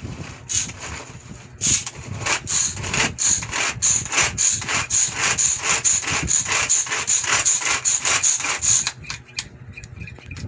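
Fresh ginger scraped by hand in quick, even strokes: a rhythmic rasping scrape, about three strokes a second, that starts under two seconds in and stops about a second and a half before the end.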